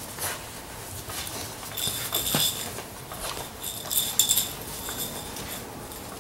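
Six-week-old Labrador puppies scampering and wrestling over toys on a concrete floor: paws and claws pattering and scrabbling. Brief bursts of high clinking come about two seconds in and again around four seconds.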